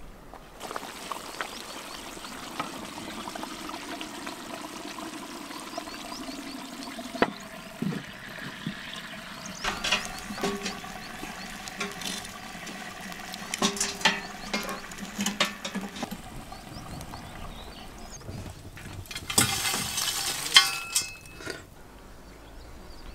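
Steady rush of running water, with scattered light clicks and knocks from handling utensils, and a louder burst of clatter near the end.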